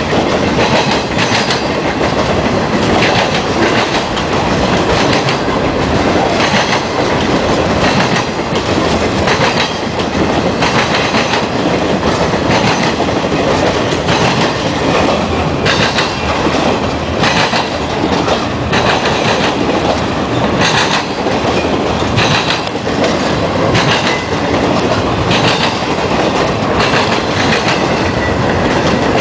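Piggyback intermodal freight train rolling past, its flatcars loaded with semi trailers. There is a steady loud rumble of wheels on rail, with repeated clacks as the wheels cross rail joints.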